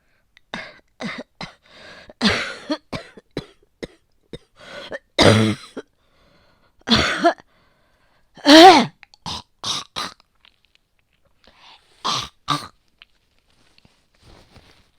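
A person coughing in repeated hard fits, with throat clearing between them. It is a productive cough bringing up heavy phlegm from a chest infection with asthma and bronchitis. The two loudest coughs come about five and about eight and a half seconds in, the later one voiced and strained.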